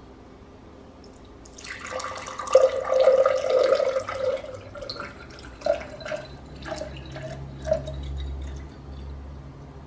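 Water poured from a plastic water bottle into a tall glass. The pour starts about a second and a half in with a steady splashing stream, loudest over the next few seconds, then breaks into separate glugs and trickles.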